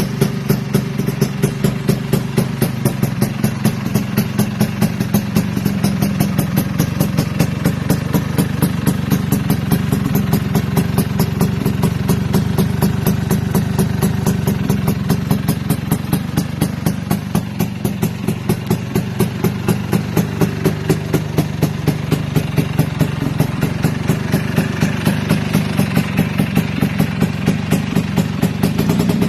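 Two-stroke Vespa scooter engine idling through an aftermarket 'shrimp' SRP expansion-chamber exhaust, running steadily with an even, fast pulse.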